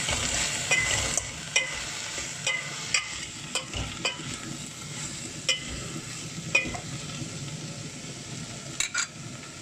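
Chopped mixed vegetables frying in a pan with a steady sizzle, while a spoon stirs them, knocking and scraping against the pan at irregular moments about once a second.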